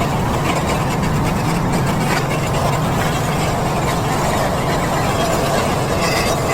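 A small petrol engine running steadily at an even speed.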